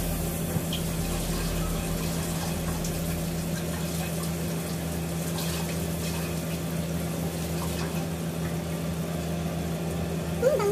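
Butter melting and sizzling in a frying pan of hot bacon drippings: a steady frying hiss with a constant low hum beneath it.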